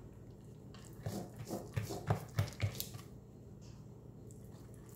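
A plastic spatula stirring wet carrot cake batter in a bowl by hand, giving soft, irregular squelches and light taps, most of them bunched together about one to three seconds in.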